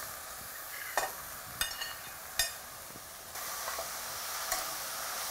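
Ground beef sizzling as it goes into hot oil and softened onion in a stainless steel saucepan. A metal spoon stirs it, clinking and scraping against the pan a handful of times.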